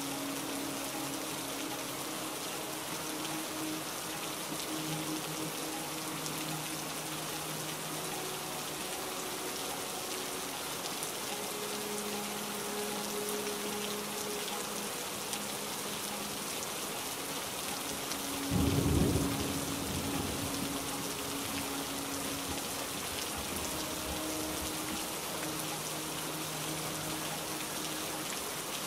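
Steady heavy rain falling, with one short low rumble of thunder about two-thirds of the way through. Soft sustained music notes sit faintly underneath, changing every few seconds.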